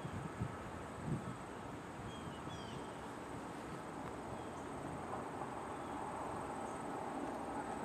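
Faint outdoor ambience: a steady high insect buzz and a few short bird chirps over a low, even rumble of the distant approaching diesel freight train, muffled by a tailwind. A few low wind thumps hit the microphone in the first second.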